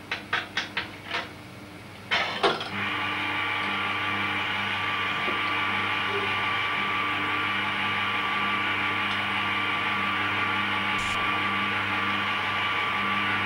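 An automaton's mechanism being set going: about five quick clicks, then a clatter about two seconds in as its electric motor and gearing start, running on steadily with a hum and a higher whine.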